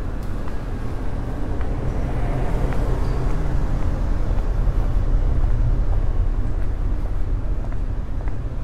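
City street traffic: a steady low rumble of motor vehicles, swelling about halfway through as a vehicle passes close and then easing off.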